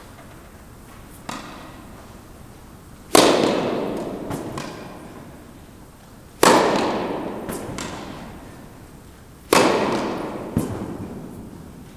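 Tennis balls struck with rackets in a rally: three loud hits about three seconds apart, each ringing out in the echo of an indoor tennis hall, with fainter hits between them.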